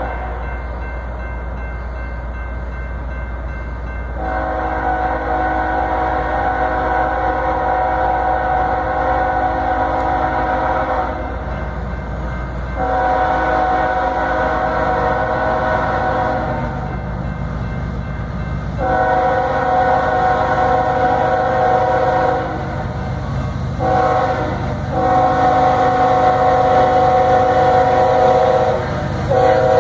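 Locomotive air horn sounding a chord in blasts: three long ones, then a short one and another long one. Underneath is the steady low rumble of the approaching diesel locomotives, growing louder.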